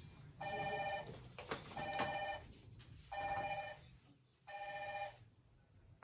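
A phone ringing: an electronic ring tone sounding in short bursts, four of them about a second and a half apart. There are a couple of sharp clicks between the second and third rings.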